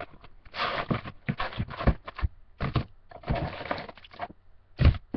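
Foil-wrapped trading-card packs and their cardboard box being handled: several short bursts of crinkling and rustling, with a couple of light knocks as packs are set down in a stack on a desk.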